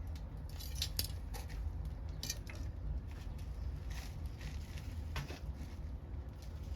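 Backyard wood fire crackling, with scattered sharp pops over a steady low rumble.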